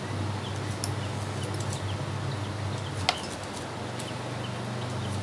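A screwdriver driving a screw into the plastic motor cover of a stand fan, with two sharp clicks, about a second in and about three seconds in. Small birds chirp faintly and a low steady hum runs underneath.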